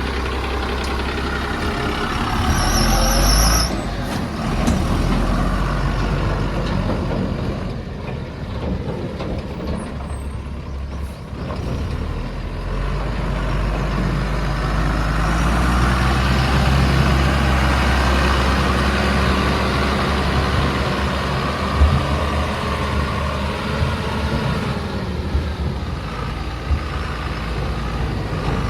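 JCB 3DX backhoe loader's diesel engine running under way, its speed rising about thirteen seconds in and holding higher for several seconds. A short high-pitched warble sounds about three seconds in, and a single knock near the end.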